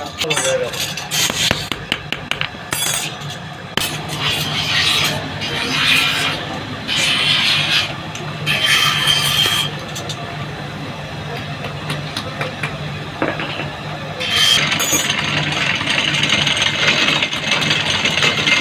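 Drill press running with a steady motor hum while its bit bores into small wooden pieces, giving stretches of scraping, grinding noise that are loudest and densest near the end. A few light metallic clicks from handling steel strips come at the start.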